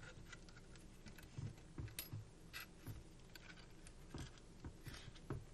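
Faint, irregular small clicks and taps, about eight of them, from a hand tool and gloved hands working the PSA Jakl's adjustable gas block.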